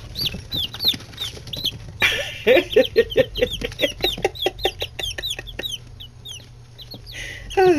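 Nine-day-old chicks peeping continuously in short, high, falling peeps, with a busier, louder flurry of peeps from about two seconds in.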